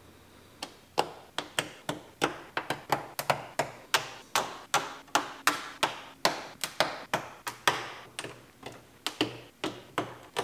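A rubber seal being pressed into place along the front edge of a car hood: a long irregular run of sharp taps and clicks, about three a second.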